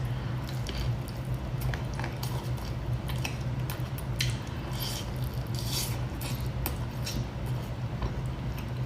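A person biting and chewing food close to the microphone: soft wet squishes and scattered small crackles, over a steady low hum.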